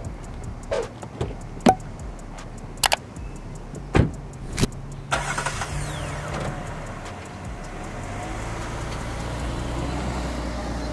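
A few sharp clicks in the first five seconds, then a Jeep Cherokee SUV's engine starts about five seconds in and settles into a steady idle that slowly grows a little louder.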